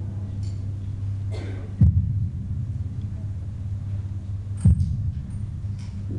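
Closing passage of an electronic ambient track over a hall's sound system: a steady low drone with two deep, heartbeat-like booms about three seconds apart.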